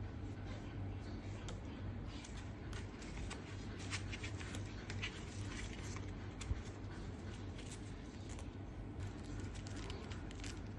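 Handling noise from gloved hands working a helmet intercom's cable and foam-covered speakers: soft rustling with many small light clicks, over a low steady hum.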